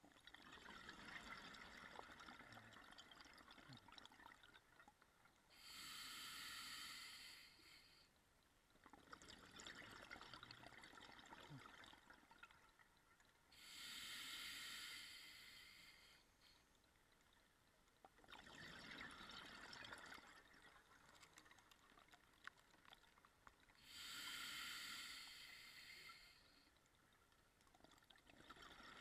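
Scuba diver breathing through a regulator underwater: three hissing inhalations of about two seconds each, roughly every nine seconds, with longer crackling, gurgling stretches of exhaled bubbles between them.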